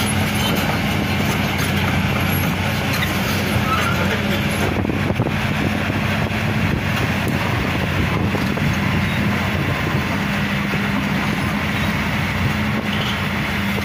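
Crawler excavator's diesel engine running steadily with a low, even hum as the machine drives off a barge onto the quay.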